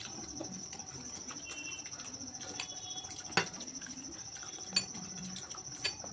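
Metal spoons clinking against ceramic plates and bowls during eating, a few separate clicks with the loudest about halfway through. Under them runs a steady high-pitched chirring.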